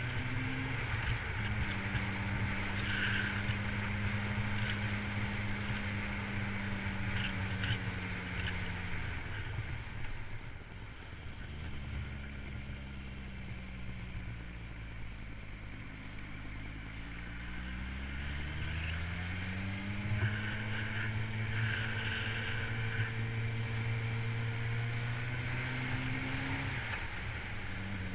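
Vehicle engine running on the road. It falls in pitch as it slows about ten seconds in, stays low through a hairpin bend, then climbs again as it accelerates out.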